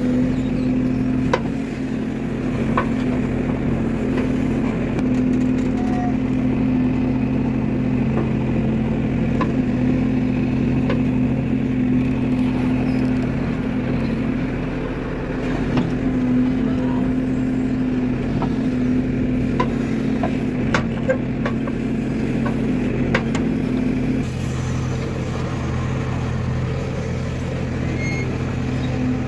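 Heavy vehicle's engine running at a steady speed with an even drone, with a few light clicks scattered through; one part of the drone drops away near the end.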